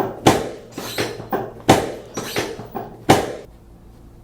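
A quick, uneven series of about ten sharp knocks or thumps, roughly three a second, each with a brief ring. They stop about three and a half seconds in.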